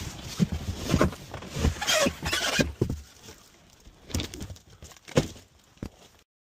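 Cardboard box and foam packing being turned over and handled: irregular rustling, scraping and knocks, busiest in the first three seconds, then a few scattered knocks, one sharper about five seconds in.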